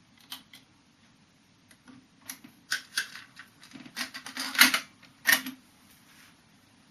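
Mechanical clicks and clunks of a harman/kardon CD491 cassette deck being handled and operated: two small clicks at the start, then a run of clatter and heavier clunks from about two to five and a half seconds in.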